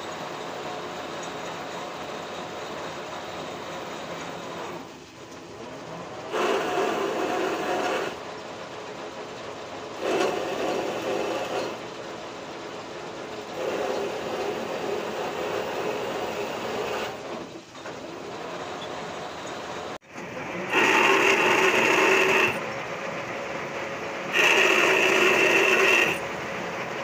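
Metal lathe running with a steady hum, its cutting tool biting into a rotating steel shaft in repeated passes of a second or two, each a louder, rasping cut; the last two passes near the end are the loudest.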